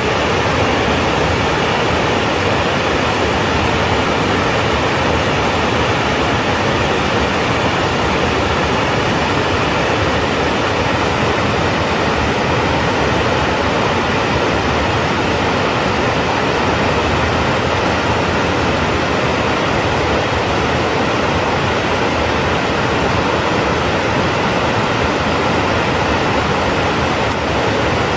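Waterfall: a large cascade of white water falling over rock slabs, a loud, steady, even rush of water.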